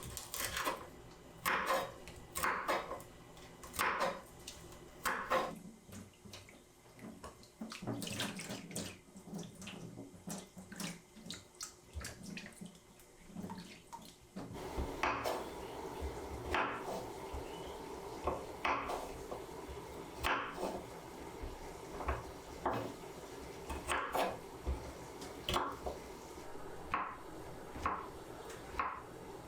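Water running from a kitchen tap into a sink, starting about halfway through, over repeated short strokes of something being washed by hand at the sink.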